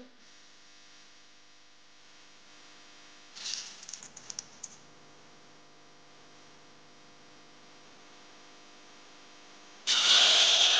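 Blended red paste poured into hot oil in a pressure-cooker pot, starting a loud sizzle near the end. Before that there is only a faint steady hum, with a brief cluster of light clicks about a third of the way in.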